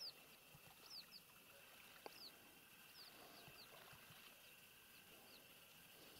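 Faint bird calls: short, high chirps sliding downward, often two close together, repeated about once a second and fading toward the end, over a quiet hiss.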